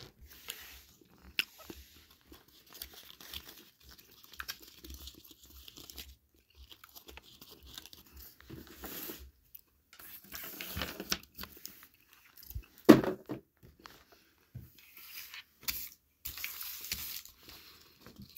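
Chewing a Starburst fruit chew, with mouth sounds up close, mixed with the crinkle of the Starburst foil pack being handled. Scattered irregular small noises, with one sharper, louder sound about two-thirds of the way in.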